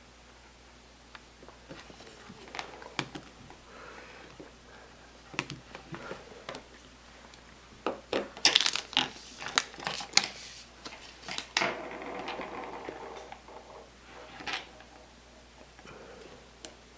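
Handling noises from an iPhone being handled after reassembly: scattered clicks and taps, a quick cluster of sharp clicks about eight to ten seconds in, and a short rustle just after.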